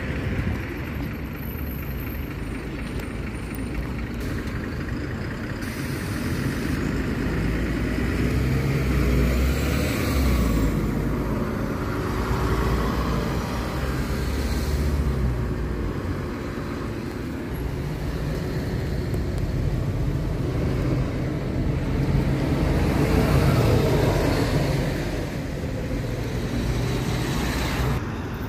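Diesel engines of articulated city buses running and pulling away among passing cars, the engine note rising as they accelerate; loudest about a third of the way in and again near the end.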